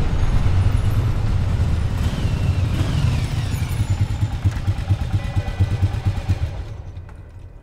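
Cruiser motorcycle engine running with a low, uneven pulse, dying away near the end.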